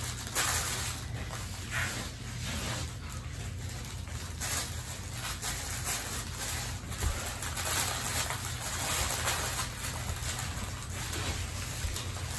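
Infants fussing and cooing softly, over a steady low hum.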